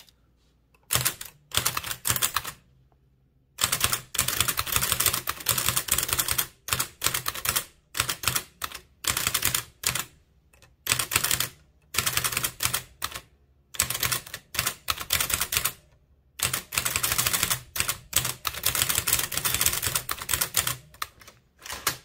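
A 1914 Blickensderfer Aluminum Featherweight, a single-element typewriter with a rotating type cylinder, being typed on. Keystrokes clack in quick runs, with a few short pauses between them.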